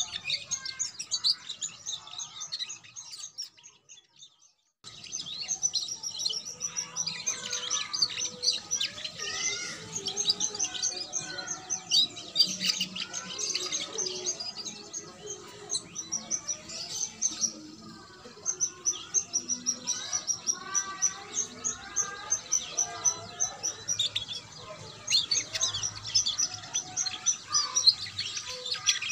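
Young domestic canary, about two months old, singing a long, rambling run of rapid chirps and trills, with a pause of about two seconds around three seconds in.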